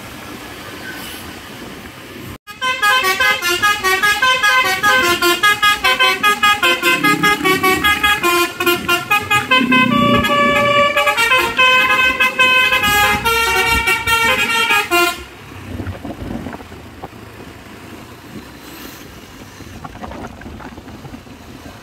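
A basuri telolet multi-tone truck horn plays a fast melody of many short notes, starting about two and a half seconds in and cutting off abruptly about fifteen seconds in. Steady road traffic noise remains.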